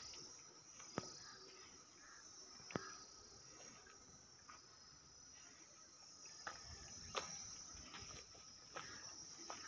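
Faint, steady, high-pitched insect chirring, like crickets, with a few sharp clicks: one about a second in, another near three seconds, and several more in the second half.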